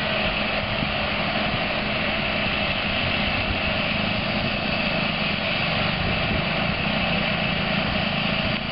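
Vehicle engine idling steadily under a constant noisy hum.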